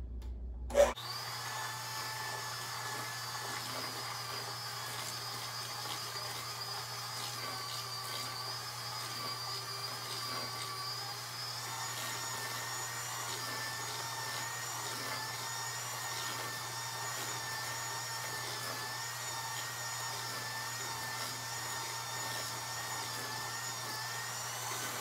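Handheld electric mixer switched on with a click about a second in, then running steadily on low speed, its beaters whirring through a bowl of liquid brownie batter of melted butter, eggs and sugar.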